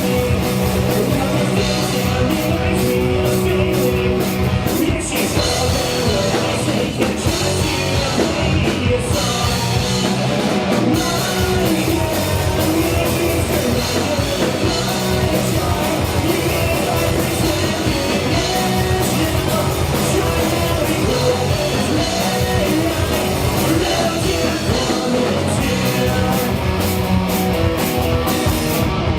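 Rock band playing live, loud and continuous, with electric guitar and drum kit.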